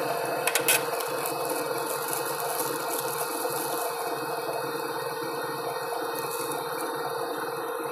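Stand mixer motor running steadily while it beats eggs in a stainless-steel bowl, with two brief sharp clicks about half a second in.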